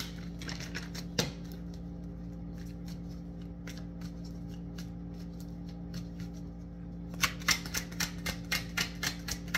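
A deck of tarot cards being shuffled by hand: a few soft scattered card clicks, then from about seven seconds in a quick run of card snaps, about five a second, over a steady low hum.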